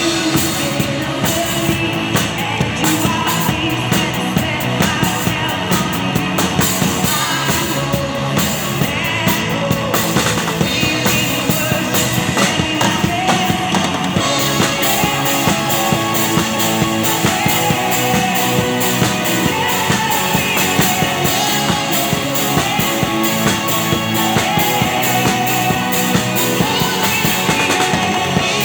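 Rock music with a drum kit played hard and steadily over guitar and a singing voice.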